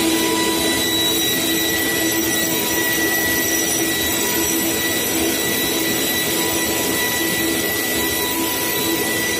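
Router spindle on a RUK flatbed cutting machine running at speed and routing a groove in a sheet of board during a test cut. It makes a steady whine over a rushing noise, unchanging throughout.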